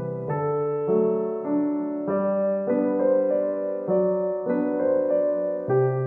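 Background music: a soft piano or electric piano playing sustained notes and chords, with a new chord roughly every two-thirds of a second in a steady, slow rhythm.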